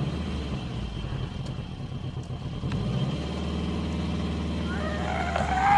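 Car engine running low and steady, heard from inside the vehicle, its note thickening a little about three seconds in. Near the end a person's voice begins to rise into a cry.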